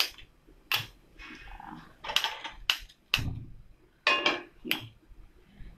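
Sharp clicks of a handheld spark gas lighter at a gas stove burner, then a nonstick pan knocking down onto the burner grate about three seconds in, followed by a few lighter knocks.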